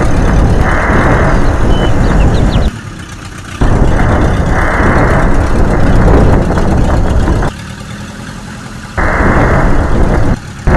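Loud, rough heavy-vehicle engine noise that drops out abruptly twice, each time for about a second or more, then starts again at full level.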